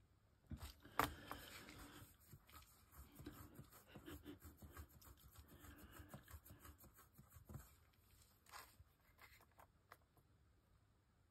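Faint small clicks and scratchy handling noise, with one sharper click about a second in. The rest is quiet.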